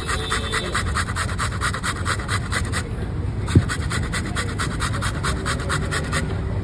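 Beetroot being rubbed fast across a hand-held metal grater, a rapid scratching of about seven strokes a second that pauses briefly about three seconds in and stops near the end. A single thump comes shortly after the pause, over a low street hum.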